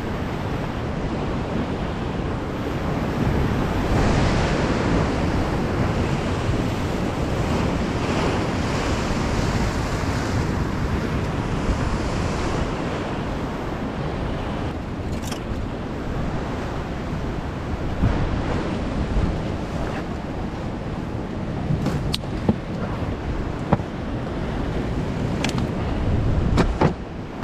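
Rough North Sea surf washing against rocks, with gusting wind buffeting the microphone; the wash swells louder for several seconds in the first half. A few sharp knocks come in the second half.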